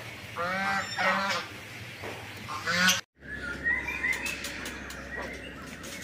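Black swans calling: three short, pitched calls whose pitch drops at the end, spaced over the first three seconds. After a cut, a quieter stretch follows, with faint high chirps over a low hum.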